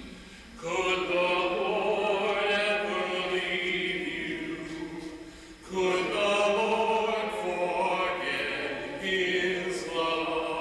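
Entrance hymn sung without any accompaniment, led by the deacon's voice. Sung phrases begin about a second in, again near six seconds and near ten seconds, with short breaks between them.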